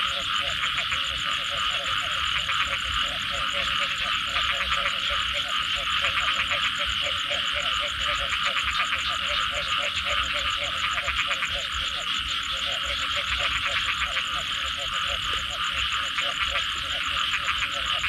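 Dense chorus of many frogs calling at once, steady throughout: fast pulsed croaking under a continuous, higher trilling din.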